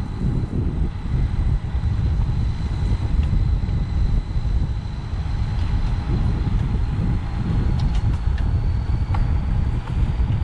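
Wind buffeting the microphone while riding a road bike, a dense gusty rumble, with a faint steady high whine that rises slightly in pitch in the second half.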